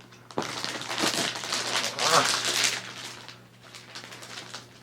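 Packaging crinkling and rustling as it is pulled and torn open, starting about half a second in, loudest about two seconds in, and dying down after about three seconds.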